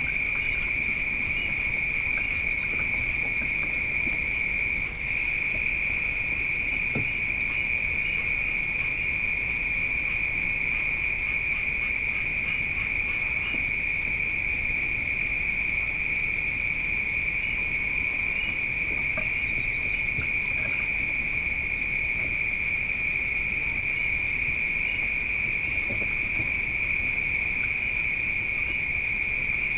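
Steady chorus of crickets and other night insects trilling without a break at two high pitches, the higher one a fast pulsing trill.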